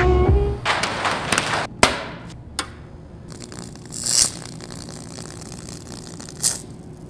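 Pencil scratching on a hard surface, a single knock, then an electric etching pen crackling and hissing in two short bursts as its tip sparks against the surface.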